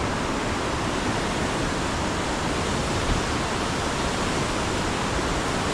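Steady rushing of a river flowing below, an even hiss with no breaks.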